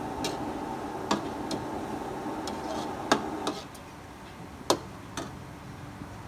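Steel ladle knocking and scraping against an aluminium wok while onions and beef are stir-fried, with sharp clanks about every second, over a steady sizzle. The sizzle gets quieter about three and a half seconds in.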